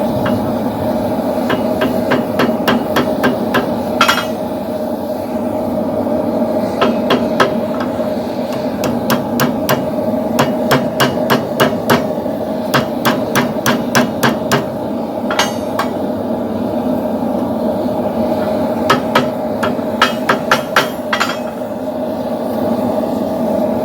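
Hand hammer striking hot steel on an anvil, forging a poleaxe top spike, in runs of quick blows about three a second with short pauses between runs, over a steady low hum.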